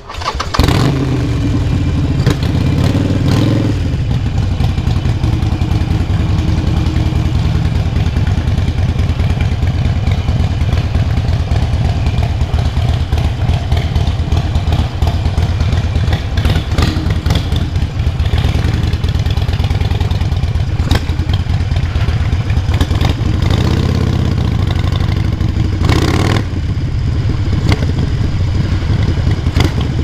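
Harley-Davidson Forty-Eight's 1200 cc air-cooled V-twin, breathing through a Vance & Hines full exhaust system, starting up suddenly, then revving briefly a few seconds in. It then runs steadily with an even low pulse.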